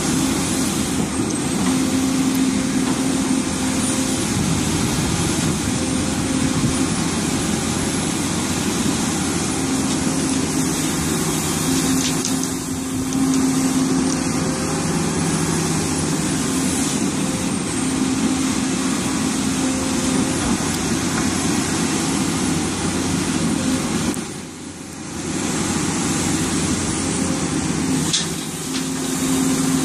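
Hidromek HMK300LC-3 crawler excavator's diesel engine running under working load. Its pitch steps up and down as the load changes, with a brief lull about three-quarters of the way through.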